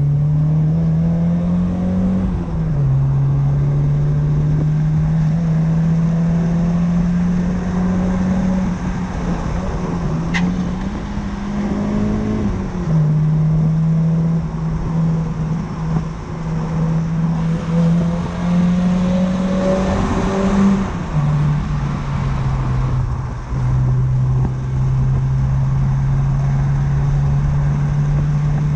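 1993 Mazda MX-5 Miata's 1.6-litre four-cylinder engine through an aftermarket Cobalt exhaust, driving at steady cruising revs. Three times the engine note climbs and then drops back sharply: about two seconds in, near the middle and about three quarters through. A single sharp tick comes about a third of the way in.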